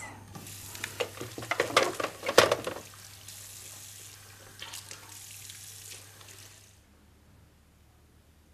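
Plastic handset of a rotary desk telephone being put down and clattering onto its cradle: a cluster of clicks and knocks, the loudest about two and a half seconds in. A steady hiss follows and cuts off suddenly near the end.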